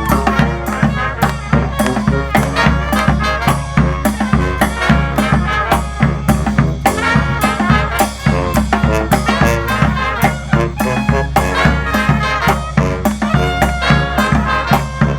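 Brass street band playing live: trumpets and trombones over a steady drum beat.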